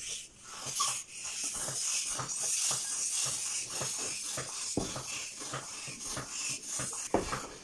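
Handheld balloon pump being worked in repeated strokes, each stroke pushing a hiss of air into a small latex balloon. There are a couple of sharper clicks, one past the middle and one near the end.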